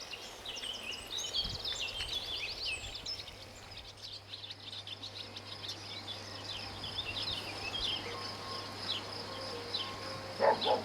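Birds chirping in quick, varied calls over a steady high insect buzz and a low hum, with a short, louder call about ten and a half seconds in.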